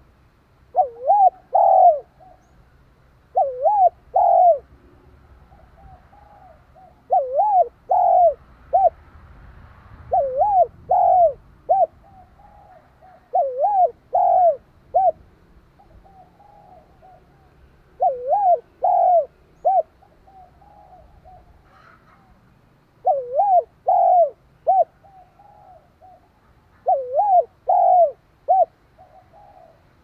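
Spotted dove cooing: eight repeated phrases, each of three or four curving coos, every three to four seconds. This is the male's advertising call, the kind that is used to stir up wild doves.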